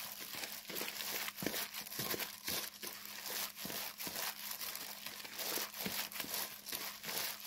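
Hands in thin disposable plastic gloves tossing blanched scallions with toasted seaweed flakes and seasoning in a plastic bowl: irregular crinkling of the gloves and rustling of the greens, in quick uneven strokes. A faint steady hum runs underneath.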